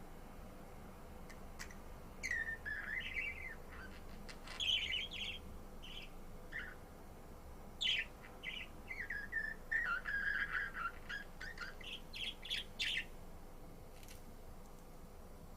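Budgerigar chirping and warbling in a string of short chirps and rising and falling phrases, starting about two seconds in and stopping a few seconds before the end.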